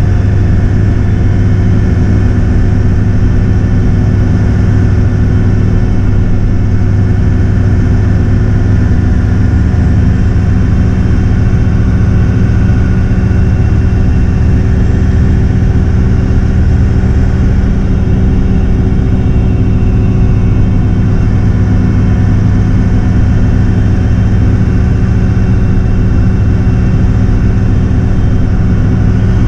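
Daewoo BH117H coach's diesel engine running steadily at cruising speed, heard from inside the bus cabin: an unchanging low drone with road noise.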